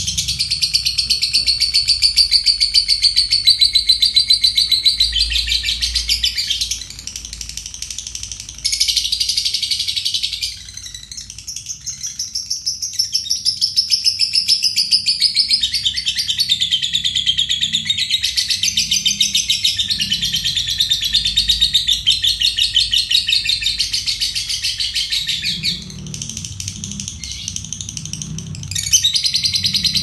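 Caged lovebird singing its long 'ngekek': a very rapid, high chattering trill held for several seconds at a time. It breaks off briefly about seven, eleven and twenty-six seconds in.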